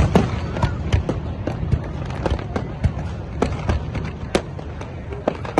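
Aerial fireworks display: a rapid, irregular volley of bangs and crackles, several a second, over a continuous low rumble.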